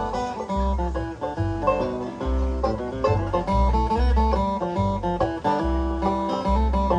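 Live bluegrass band playing an instrumental break: banjo and guitar picking over a steady, regular bass line.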